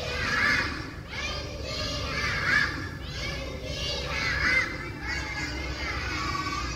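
A chorus of schoolchildren's voices in unison, in phrases of about a second each, every couple of seconds.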